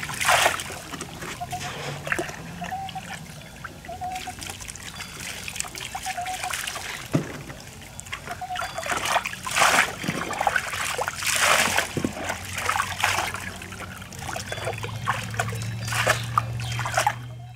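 Water poured from a plastic cup over a small dog standing in a soapy plastic kiddie pool, trickling and splashing back into the pool in several separate pours.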